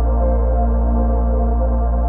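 Ambient new-age relaxation music: sustained synthesizer pads over a steady low drone, holding one chord.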